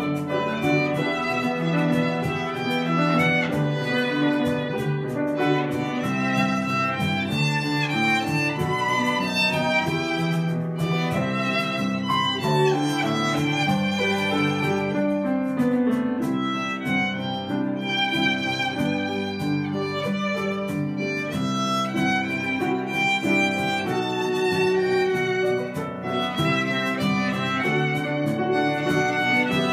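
Two violins playing a melody together over piano accompaniment, with a cajón played alongside, in a live acoustic performance.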